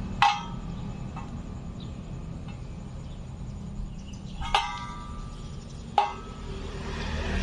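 Metal being knocked against metal three times, each clank ringing briefly, over a low steady hum.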